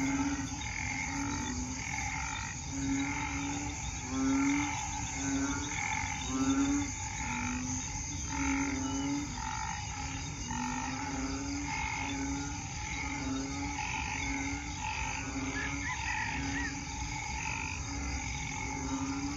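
A chorus of banded bullfrogs (Asian painted frogs) calling after heavy rain. Their low, short calls come about once a second and overlap, over a steady higher chorus of other calls.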